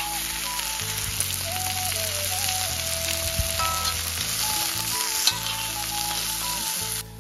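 Food frying, a steady sizzle scattered with small pops, under background music with a simple melody and bass. The sizzle cuts off suddenly near the end.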